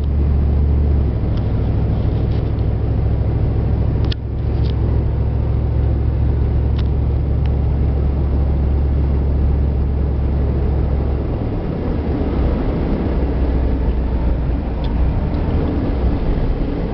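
Chevrolet Suburban's diesel V8 running under way, a steady low drone with road noise. The engine note drops briefly about four seconds in and changes again about eleven seconds in.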